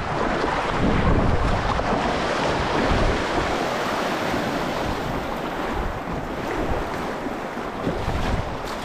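Fast river current rushing and splashing against a plastic kayak's hull as it runs through a riffle, with wind buffeting the microphone, heaviest in the first few seconds.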